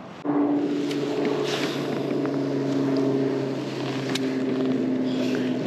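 Small electric boat motor, likely a kayak trolling motor, switching on about a quarter second in and running with a steady hum that sags slightly in pitch.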